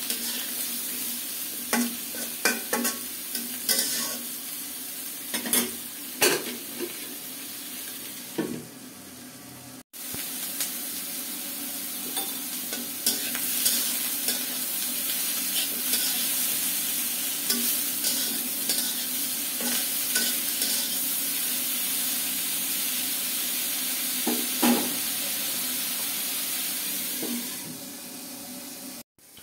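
Pointed gourd pieces sizzling as they fry in hot oil in a pan. A spatula knocks and scrapes against the pan repeatedly during the first several seconds and once more near the end. The sound breaks off briefly about ten seconds in.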